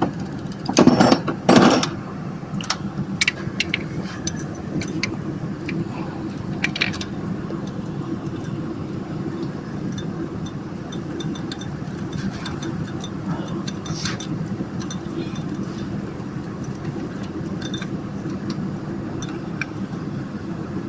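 Hand tools clinking and scraping on metal as a nut is worked off a diesel high pressure fuel pump, with two louder clattering bursts about a second in and scattered light clicks after, over a steady low hum.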